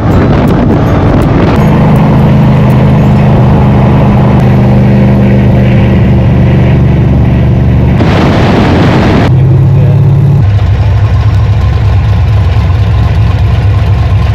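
Car engine running loudly at a steady speed, with a brief rush of noise about eight seconds in, then settling to a lower, steady note.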